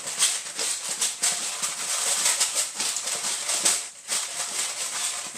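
Hand-twisted pepper grinder cracking peppercorns: a fast, gritty rasp of fine clicks that pauses briefly about four seconds in, then starts again.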